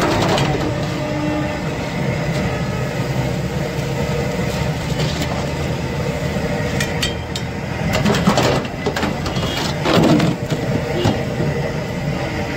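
Potato chips frying in a deep well of hot oil with a steady sizzle and hum. Several sharp metal clanks break through, loudest about eight and ten seconds in, as a metal skimmer and the steel fryer lid knock against the fryer.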